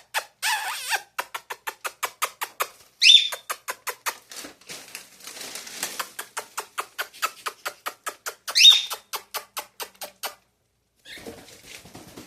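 Male cockatiel giving two short, sharp chirping calls, about three seconds in and again near nine seconds, over a fast, even ticking of clicks at about five a second. There is a brief rustle near the start.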